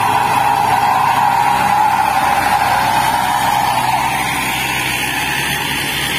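Light diesel dump truck's engine working as it climbs past, with a loud steady drone that sinks a little in pitch and fades after about four seconds as it moves away.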